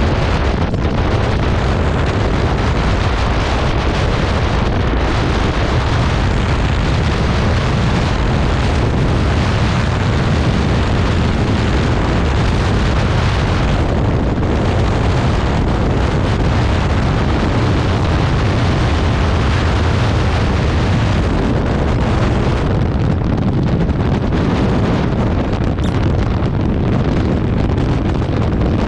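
Wind rushing over the microphone of a Honda ADV 150 scooter ridden at speed, with the scooter's single-cylinder engine running beneath it. Loud and steady throughout.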